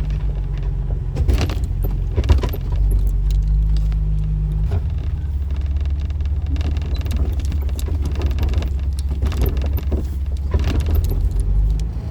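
A 2004 Jeep Wrangler driving, its engine and road noise making a steady low drone that shifts about five seconds in. Short rattles and jangles sound now and then over it.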